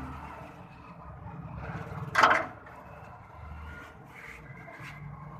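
A low engine-like rumble running steadily, with one short, loud, hissing or scraping burst about two seconds in.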